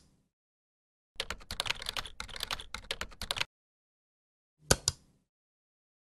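Typing on a computer keyboard, a quick run of keystrokes lasting about two seconds, then a sharp double click about a second later.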